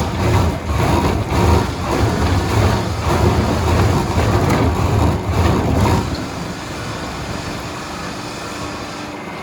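Rotary veneer peeling lathe running under load: a heavy low rumble with a rough, fluctuating grinding hiss. About six seconds in the rumble drops away, leaving a quieter steady machine noise.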